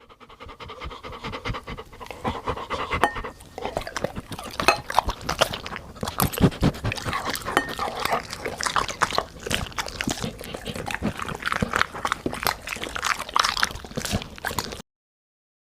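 A dog eating soupy rice and egg from a bowl: a dense run of wet chewing, lapping and smacking sounds with panting mixed in. It stops suddenly near the end.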